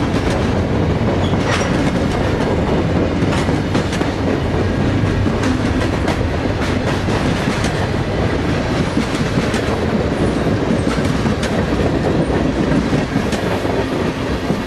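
Freight cars of a mixed freight train (tank cars, boxcars and covered hoppers) rolling past close by: a loud, steady rumble of steel wheels on rail, with irregular clicks and clanks from the wheels running over the rail joints.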